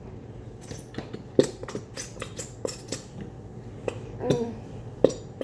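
Scattered light clicks and knocks of kitchen utensils against a bowl while glue is squeezed from its bottle. A short voice sound comes a little past four seconds in.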